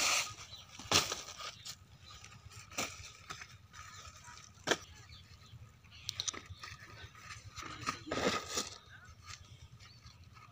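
Flat plastic lay-flat irrigation pipe crinkling and flapping as it is pulled from a folded bundle and laid out, with scattered sharp clicks and a louder rustle about eight seconds in.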